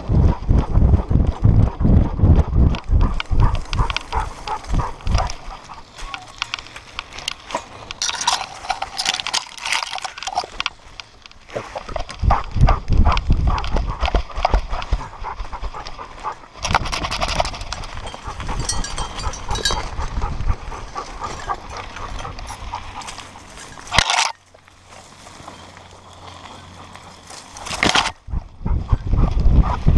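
A dog running flat out on a dirt trail with a camera harnessed to its back: the rhythmic thud and rattle of its gait shaking the mount, with rushing noise. The sound drops for a few seconds near the end, then picks up again.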